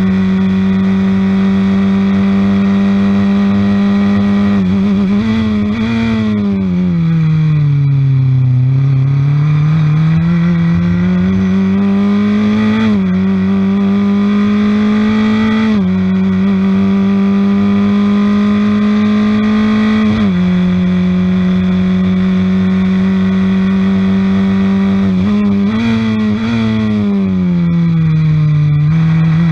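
On-board sound of a Formula Ford 1600 race car's Honda Fit four-cylinder engine running hard. The revs hold high and steady, fall away over a few seconds about five seconds in, then climb back in steps through gear changes, with another drop and rise near the end.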